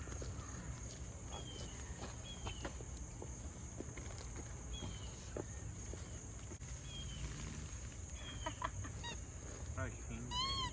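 Birds calling: a string of short, high chirps that fall in pitch, repeating every second or so, and a louder call near the end.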